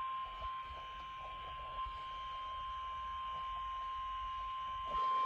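Emergency alert tone for a tornado watch: a single steady electronic tone, the warning alarm tone of a weather-radio alert, with faint background hiss. It gets louder about five seconds in.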